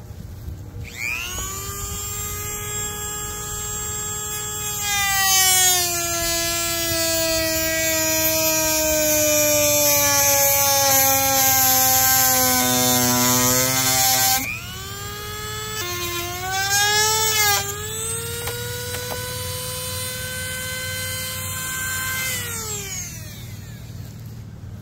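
High-speed power tool spinning up to a high, steady whine. From about five seconds in its pitch sags and it grows louder for nearly ten seconds before easing off. It swells briefly once more, runs steady, and winds down near the end.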